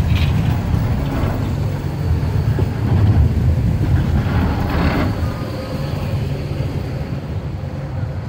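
A VBZ city tram rolling past close by: a steady low rumble of wheels on rails and running gear, with swells of rail noise. It eases off slightly after about five and a half seconds.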